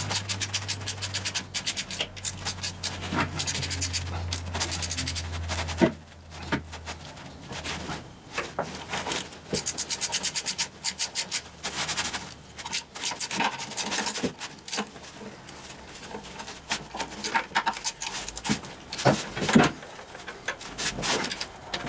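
Sped-up sound of wrench work on the oil pan bolts of a Ford 800 tractor: rapid runs of ratchet-like clicking with scraping and knocks. A low steady hum stops about six seconds in.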